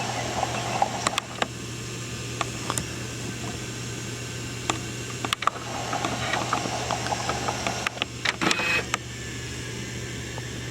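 VHS camcorder mechanism running: a steady motor hum and whir with scattered sharp mechanical clicks.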